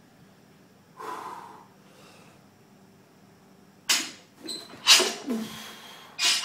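A barbell power clean with 165 lb of plates. There is a short sharp breath about a second in. About four seconds in the loaded bar clatters off the floor, followed just after by a loud grunting exhale as the bar is caught at the shoulders.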